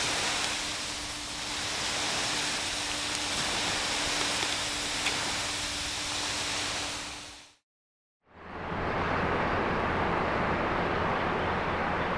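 Steady wash of ocean surf, an even hiss that fades out about seven and a half seconds in. After a moment's silence, a duller, lower rumble of surf fades in.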